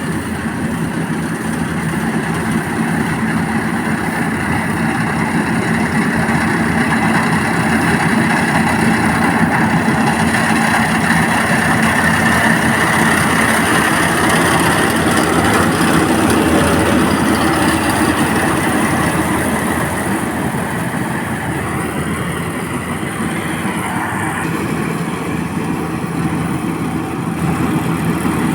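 Engine of a paddy harvesting machine running steadily, growing louder for a while and then easing a little.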